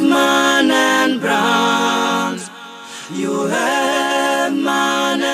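Song with layered sung vocal harmonies holding long notes that slide into pitch, breaking off briefly about two and a half seconds in.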